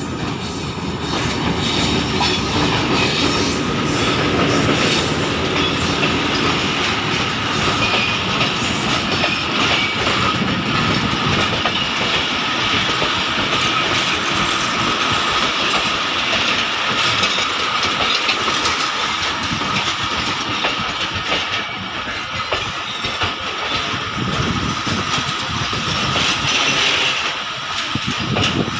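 Pakistan Railways passenger train rolling in, its coach wheels clattering rhythmically over the rail joints with a thin, steady squeal of wheel on rail.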